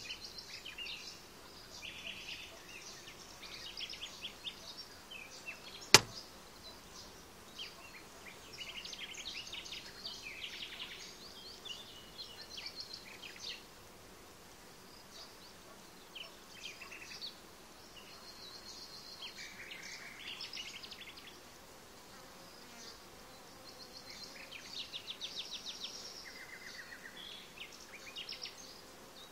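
Honeybees from an opened hive buzzing, the sound coming and going in short spells. A single sharp knock about six seconds in.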